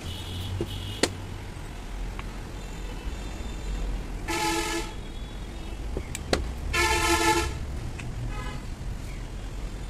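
A vehicle horn honks twice, each a steady note under a second long, about four and seven seconds in, with a fainter short toot after; a couple of sharp metal clicks come from valve lifter buckets being handled on the aluminium cylinder head.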